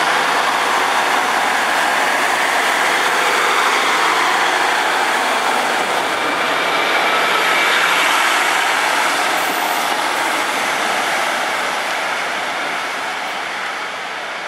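Class 150 Sprinter diesel multiple unit running past and pulling away, its diesel engines and wheels making a steady, loud noise. The sound fades over the last few seconds as the train draws away.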